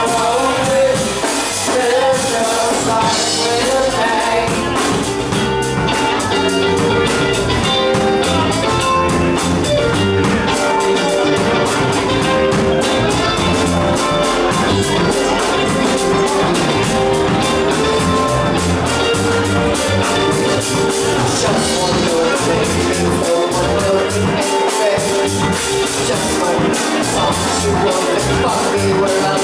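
Rock band playing a song: drum kit keeping a steady beat under guitar and bass, with some singing.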